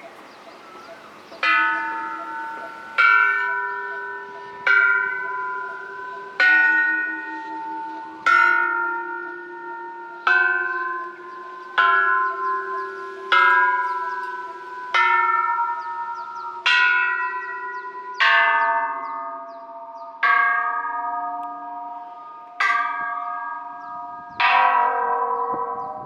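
Thai Buddhist temple bells struck one after another, about fourteen strikes every one and a half to two seconds, starting about a second and a half in. Each bell sounds at its own pitch and rings on, dying away as the next one is struck.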